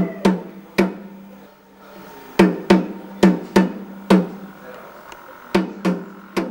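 A hand drum struck in an uneven pattern, each stroke ringing with a pitched, fading tone. There is a quick run of strokes, a pause, a faster cluster and a few more strokes near the end, over a steady low tone.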